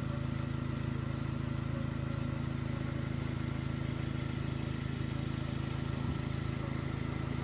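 Steady drone of a moving road vehicle: engine hum and tyre noise while driving along at an even speed.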